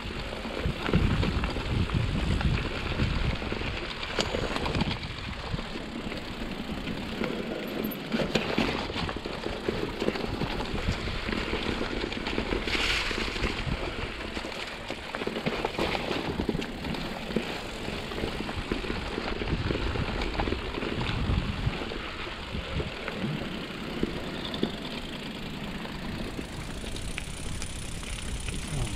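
A mountain bike riding down a rough trail: wind buffeting the helmet-camera microphone, with tyre rumble and scattered rattles and clicks from the bike.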